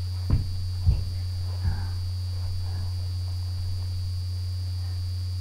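Three dull thumps in the first two seconds as children's bodies shift and land on the floor during yoga poses, over a steady low electrical hum.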